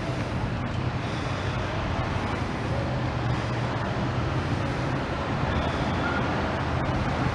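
Steady city street traffic noise: a continuous hum of cars running along the boulevard.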